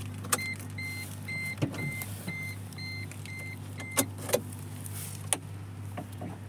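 Maruti Suzuki Ritz warning chime, a high beep repeating about twice a second, eight times, that stops about four seconds in, with the key in the ignition and the driver's door open. It comes with sharp clicks from the key and ignition lock, the loudest just as the chime begins and right after it stops, over a steady low hum.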